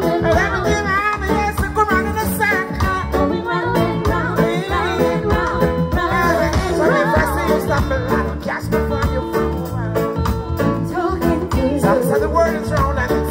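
Live reggae band playing with a male singer singing over it and a heavy bass line.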